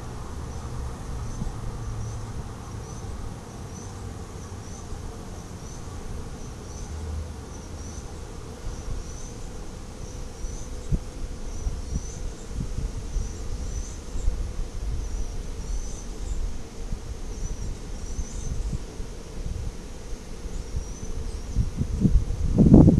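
Low rumble of the Beatenberg funicular car rolling slowly along its track into the station, with a short high chirp repeating about once a second. Near the end a louder, sudden noise sets in.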